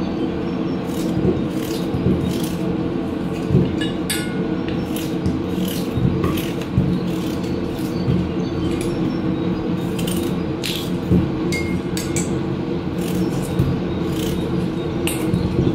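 A kitchen knife slicing through peeled raw potatoes held in the hand, making repeated short cuts as chunks drop into a metal pot, over a steady low hum.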